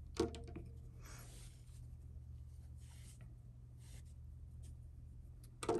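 Faint rustling of yarn being pulled and handled as a crocheted piece is slip-stitched and fastened off, with a sharp click about a quarter second in and another near the end.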